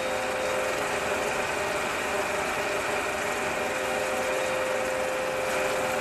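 Sound effect of a vintage film projector running: a steady mechanical whir with a constant hum tone.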